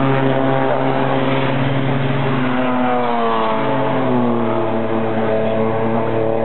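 Race car engines passing on the circuit. About three seconds in, a new engine note rises as a car comes up, then slowly drops in pitch as it goes by.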